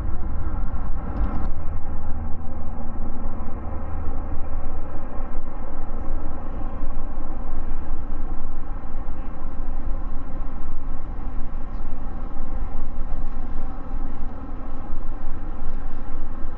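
Boeing 777-200F freighter's GE90-110B1 turbofan engines running, a loud steady rumble with a layered whine over it.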